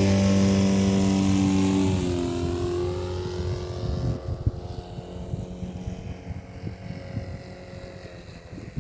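Electric motor and propeller of an RC SuperStol model plane whining in flight, the pitch sweeping up and down as it passes and growing fainter. Gusts of wind buffet the microphone.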